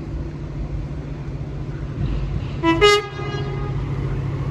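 Colas Rail on-track tamper sounding a short two-tone horn about two and a half seconds in: a lower note, then a higher one. Under it a steady low engine drone grows louder near the end as the machine approaches.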